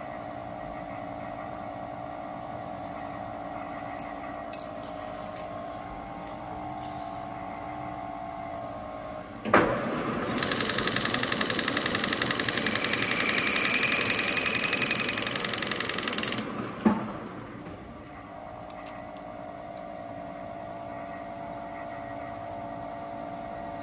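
Milling machine spindle running steadily with a boring-and-facing head fitted. About ten seconds in, after a click, a loud harsh hiss sets in for about six seconds as the facing head feeds across and takes a 0.5 mm facing cut off a bronze bush. It ends with another click, and the spindle runs on steadily.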